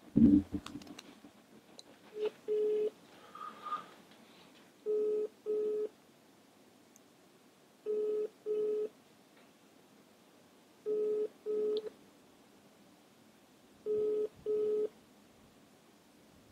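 Mobile phone call ringing out: a double-beep ringback tone, two short beeps repeated about every three seconds, five times, meaning the number is ringing and not yet answered. A short noise comes right at the start.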